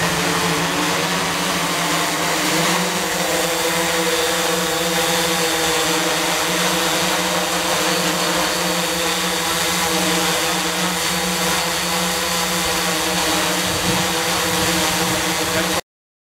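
Octocopter's eight electric motors and propellers hovering overhead: a steady multi-tone buzz over a rushing hiss, holding in place in loiter mode. It cuts off abruptly near the end.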